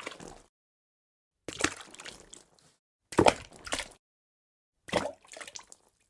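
Water drops falling one at a time, about every one and a half to two seconds, three times. Each lands with a sharp plop followed by a few smaller splashes, with silence between drops.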